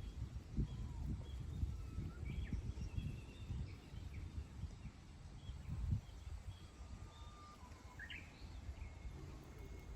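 Small birds chirping and whistling in short, scattered calls, faint beneath a low rumbling noise with irregular thumps that is loudest in the first six seconds and then eases.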